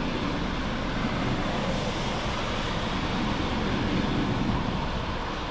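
Steady rumble of distant jet airliner engines mixed with wind noise, swelling slightly in the middle.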